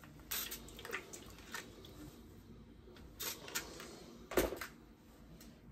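Steam iron handled and pressed over fabric on an ironing board: short hisses and light knocks, with a louder thump a little past four seconds in.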